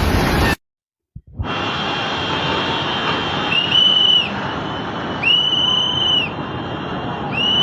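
Three long, high, steady whistle tones, each about a second, over a continuous rushing noise, after a brief cut to silence near the start.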